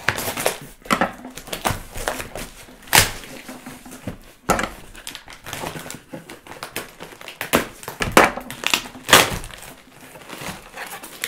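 Packing tape being slit and a cardboard shipping box torn open by hand: an irregular run of short scrapes and rips with cardboard flaps rustling, then plastic packaging crinkling near the end as the contents are pulled out.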